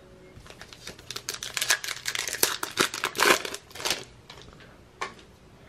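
Trading card pack being torn open, the wrapper crinkling and ripping as the cards are pulled out: a dense run of crinkles and tears lasting about three and a half seconds, then a single click about five seconds in.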